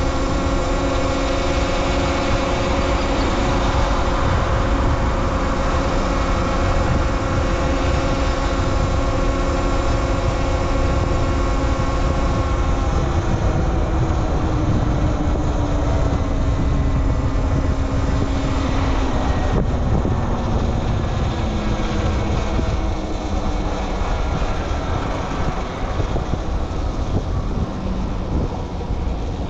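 Talaria Sting R MX4 electric dirt bike's motor and drivetrain whining at a steady pitch while riding. About halfway through the whine falls gradually as the bike slows. A heavy rush of wind noise runs underneath.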